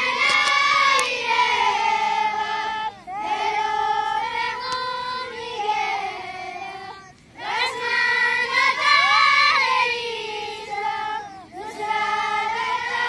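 A large group of children chanting a dua (Islamic supplication) in unison, in sung phrases of about four seconds with short pauses for breath between them.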